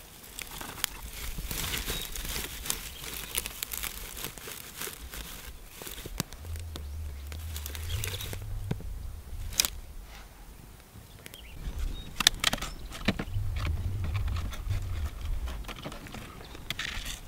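Dry grass tinder and twigs rustling, crinkling and snapping as they are stuffed into a small fire pit and lit, with irregular sharp cracks as the kindling catches and sticks are added.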